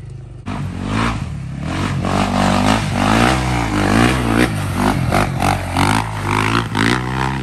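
Sport quad (ATV) engine revving hard as it rides through a muddy track, its pitch rising and falling over and over, with mud and water splashing. It starts abruptly about half a second in.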